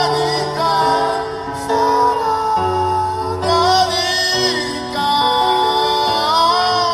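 A song sung live over instrumental backing: a voice carries a gliding melody above bass notes that are held and change every second or two.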